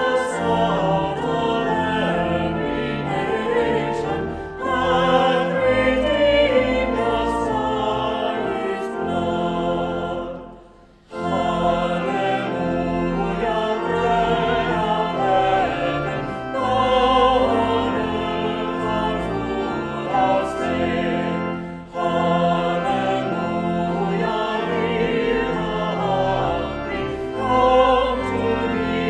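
A small mixed group of men's and women's voices singing a hymn together, with a brief pause between verses about a third of the way through.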